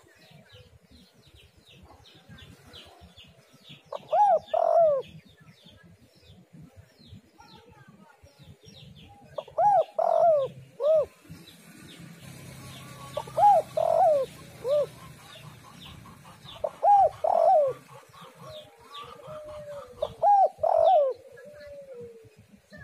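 Spotted dove (tekukur) cooing in repeated phrases of several notes, five phrases a few seconds apart. Small birds chirp faintly and rapidly in the background throughout.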